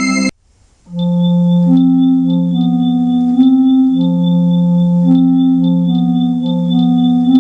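Yamaha electronic keyboard: a held chord cuts off sharply, and after a brief gap a repeating pattern of sustained low notes begins about a second in, the notes changing every half second or so, with faint regular clicks above them.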